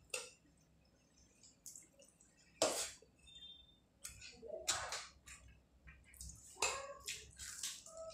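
Close-miked eating by hand: wet squishing of curry-soaked rice and wet mouth smacks and chewing, in a few sharp bursts, the loudest about two and a half seconds in.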